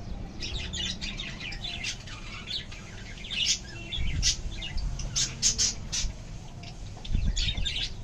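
Birds chirping in quick, high, short bursts, bunched into clusters, over a low steady background hum.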